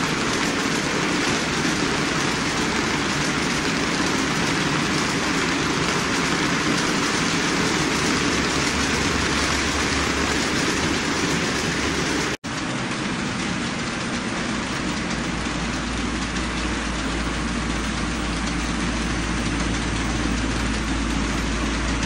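HO-scale model train running on its track: a steady rolling hiss of the reefer cars' wheels on the rails, with a low motor hum growing stronger in the second half. About twelve seconds in, the sound drops out for an instant at an edit.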